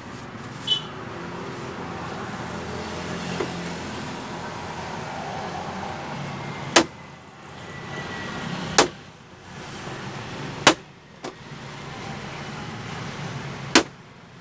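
Plastic latch clips of a screwless Samsung TV's rear cover snapping loose as the cover is pried off by hand: a series of sharp snaps roughly two seconds apart.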